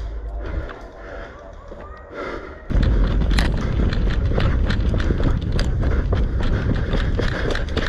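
Running footsteps on the ground with many irregular clicks and knocks and a rough low rumble, starting suddenly about two and a half seconds in after a quieter stretch.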